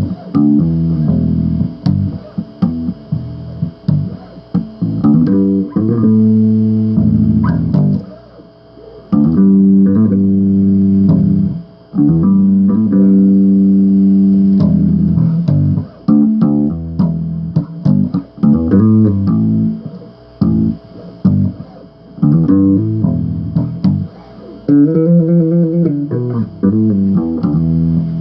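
Bass guitar played solo, riffing: plucked notes and held notes in the low register, with a few short breaks.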